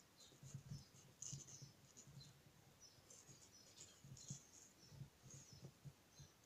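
Faint, irregular scratching strokes of a small carving knife cutting into watermelon rind and flesh, with soft knocks from the melon being handled.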